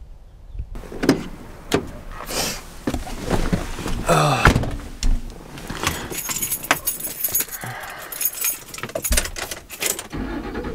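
Handling noise inside a car: rustling and a string of clicks and knocks, with jangling keys and door sounds, as someone settles into the front seat. A short gliding squeak or creak comes about four seconds in.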